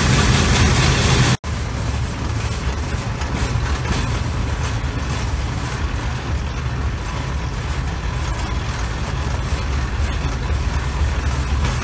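Steel wheels of a pedal-powered rail bike rolling along the rails: a steady low rumble with hiss above it. It drops out for an instant about a second and a half in, then carries on slightly quieter.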